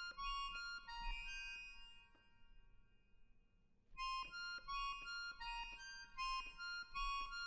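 Accordion duo playing short, high, detached notes in quick succession. The first phrase fades after about two seconds, and a second similar phrase comes in about four seconds in.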